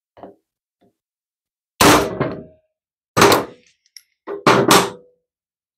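Hammer blows on a steel driver, seating a loose valve seat down into its bore in a Briggs & Stratton overhead-valve cylinder head. A light tap comes first, then four hard metallic strikes, each ringing briefly: one about two seconds in, another about a second later, and a quick pair near the end.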